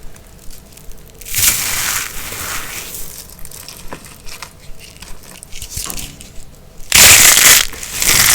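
Dry, brittle soap being crushed and cut, crunching and crumbling in crisp bursts, with the loudest crunch about seven seconds in and another just before the end.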